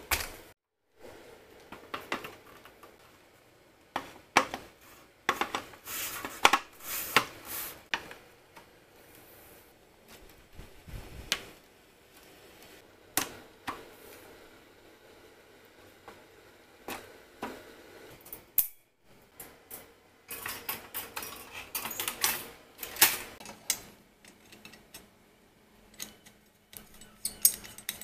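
Parts of a black metal camping-gear frame clacking and rattling as it is unfolded and assembled by hand: irregular sharp clicks and knocks of rods and fittings, in busy clusters with short quieter gaps.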